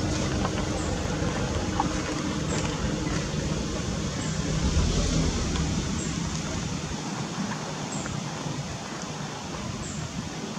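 Outdoor background noise: a steady hiss with a low hum underneath that fades out about seven seconds in.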